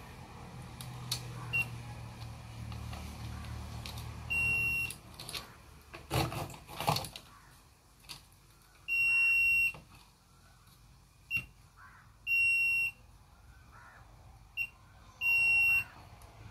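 Digital multimeter in continuity (buzzer) mode beeping as its probes touch a connection. It gives a steady high beep four times, each under a second long, with a few brief blips between, and probe clicks and handling noise near the middle. Each beep signals a low-resistance path between the probes, as when a point connected to the negative (ground) side is touched.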